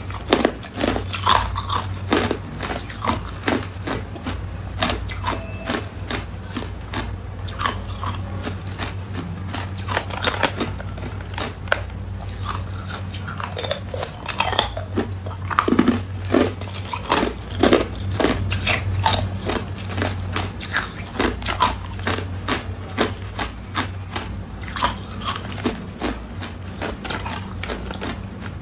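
A person biting and chewing hard clear ice cubes: irregular sharp crunches and cracks of ice breaking between the teeth, over a steady low hum.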